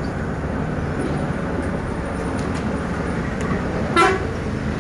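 Steady outdoor background noise, a low rumble and hiss like distant traffic, with a brief pitched call or tone about four seconds in.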